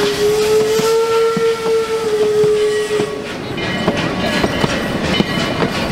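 A steam locomotive's whistle blows one long note that sags slightly in pitch and cuts off about three seconds in. Meanwhile passenger cars roll past with the clickety-clack of their wheels over the rail joints, which carries on alone after the whistle stops.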